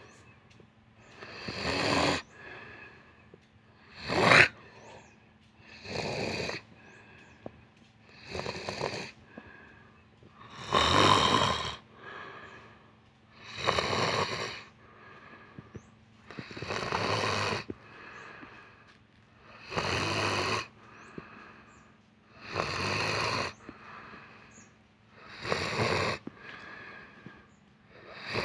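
Snoring in a steady rhythm: about ten long, noisy breaths, one every two to three seconds, with quiet gaps between.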